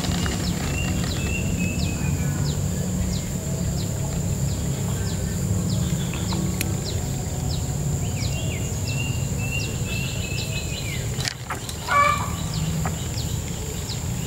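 Outdoor pond-side ambience: birds chirping and calling over and over, with short falling chirps and a warbling call that comes in twice. A steady high-pitched drone and a low rumble run underneath, and one brief louder call sounds near the end.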